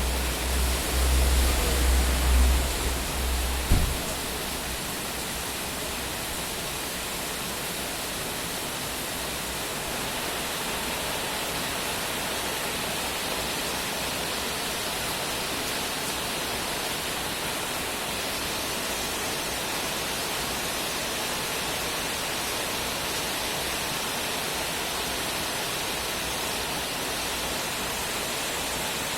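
Steady hiss of heavy rain falling through the night. For the first few seconds a loud low rumble runs underneath and ends in one sharp knock.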